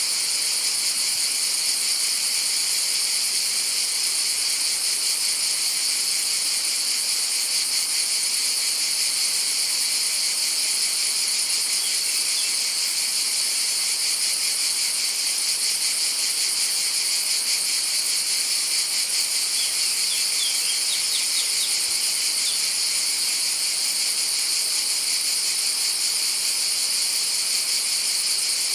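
Cicadas singing in chorus: a dense, high, rapidly pulsing buzz that holds steady without a break.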